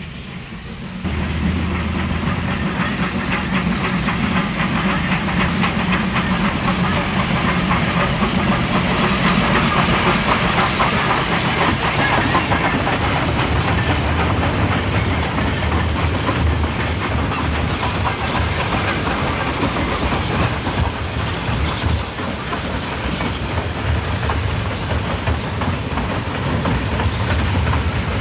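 Baldwin 2-8-2 steam locomotive and its passenger train passing close. Steam hissing and wheels clattering over the rails, coming up sharply about a second in, with the hiss loudest midway through.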